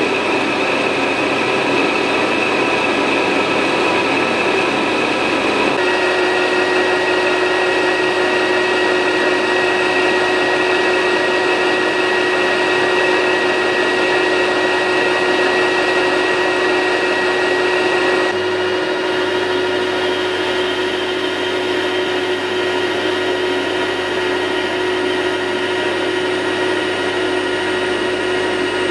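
Metal lathe running and turning a metal shaft, a steady machine whine with a few held tones over the hiss of the cut. The sound changes abruptly about six seconds in and again a little past halfway.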